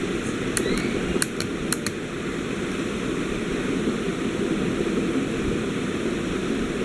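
Steady background noise, like a fan or air conditioning, with a handful of faint light clicks between about half a second and two seconds in.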